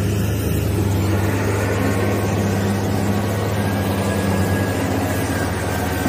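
Heavy dump truck's diesel engine running steadily with a deep, even hum as the truck drives on a muddy track.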